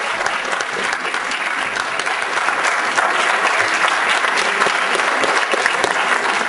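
Audience applauding steadily, welcoming a performer onto the stage.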